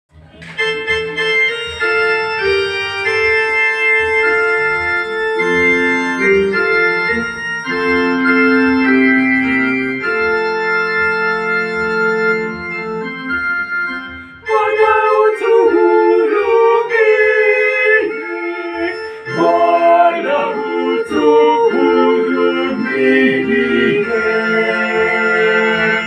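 Organ-toned keyboard playing slow, held chords as an introduction; about halfway through, a small mixed-voice choir comes in singing in parts over it, louder.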